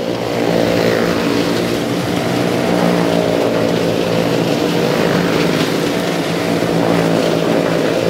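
A small car's engine running at steady, fairly high revs as the car circles the vertical wooden wall of a well-of-death drum.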